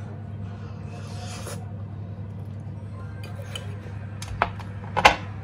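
Noodles being slurped off a fork and eaten, with a burst of hiss about a second in, over a steady low hum. Two sharp knocks near the end, the second louder.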